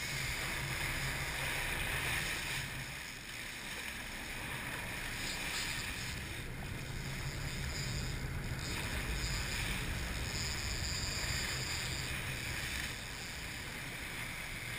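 Twin diesel engines of a 57-foot Bertram sportfishing boat running with a steady low hum, under the rush and splash of whitewater churning at the stern and wind on the microphone.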